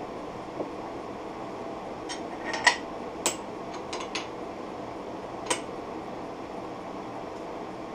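Sharp metallic clicks and clinks of a T-handle chuck key being fitted into a wood lathe's chuck and turned to close the jaws on a small bowl blank, scattered over the first five and a half seconds with the loudest about two and a half seconds in, over a steady background hum.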